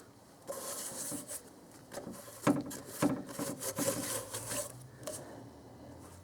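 Irregular rubbing and scraping strokes as dirt is cleaned off the engine's intake sealing surface before the intake manifold goes on. The strokes ease off about five seconds in.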